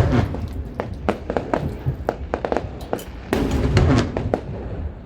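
Fireworks going off: deep booms, heaviest at the start and again about three and a half seconds in, among many sharp cracks and pops, with music playing alongside.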